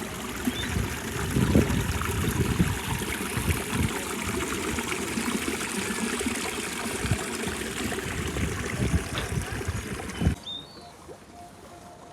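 Water running and trickling steadily, with irregular low rumbles underneath. It cuts off abruptly about ten seconds in.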